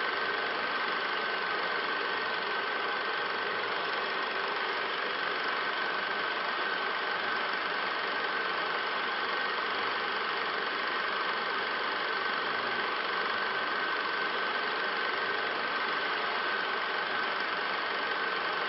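Steady mechanical drone: an even hiss with a constant high whine, holding the same level throughout.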